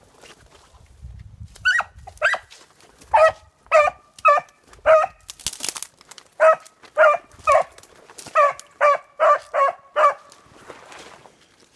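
A beagle barking in a steady string of short, sharp chop barks, about two a second, as it runs a trail. A brief rustle, as of brush, about halfway through.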